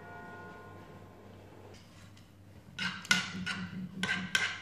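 Metal fork and spoon clinking against a metal frying pan, a quick run of sharp clinks starting about three seconds in, over faint background music.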